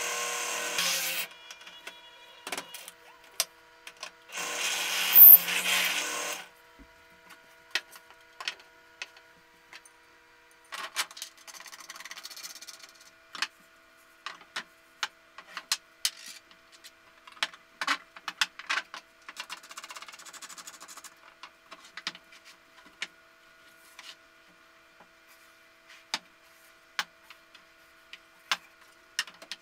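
Benchtop drill press boring through plywood in two short, loud bursts, its motor hum dying away about ten seconds in. Then scattered knocks, clicks and rubbing as curved wooden parts and steel bolts are handled and fitted together.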